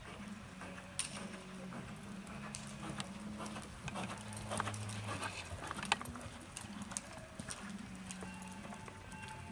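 Hoofbeats of a reining horse loping on soft dirt arena footing, an uneven run of dull thuds and clicks, with a low intermittent hum underneath.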